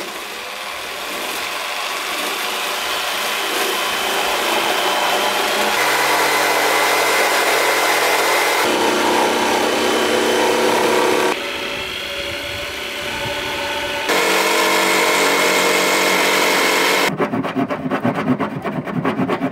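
Electric jigsaw sawing through the wooden panel of a cabinet: a steady motor whine over the blade's rasp through the wood, heard in several short stretches that change abruptly in pitch and loudness. For the last two seconds or so the sound turns rougher and more pulsing.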